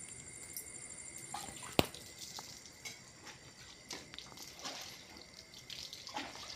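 Faint scattered clicks and ticks from the plastic column pipe of a submersible pump sliding down through the PVC borewell casing, with one sharp click a little under two seconds in. A faint steady high tone runs underneath.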